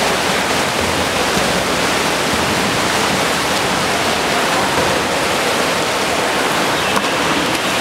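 Water splashing and churning as several water polo players sprint freestyle down the pool: a steady, even rushing noise.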